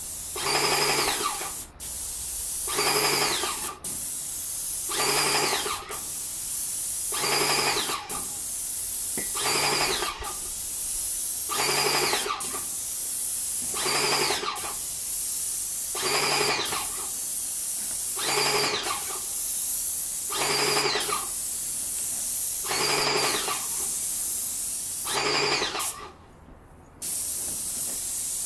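Airless paint sprayer spraying through a fine-finish tip: a steady hiss of paint atomising, with the pump motor buzzing in short bursts about every two seconds as it keeps up the pressure. The spraying stops for about a second near the end, then starts again.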